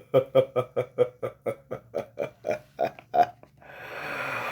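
A person's voice making a rapid run of short pitched grunts, about four or five a second and slowing. Near the end it gives way to a long breathy exhale.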